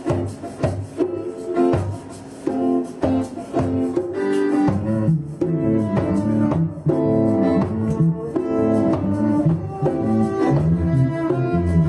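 Instrumental music led by a plucked guitar playing a picked pattern; a low bass line comes in about halfway through.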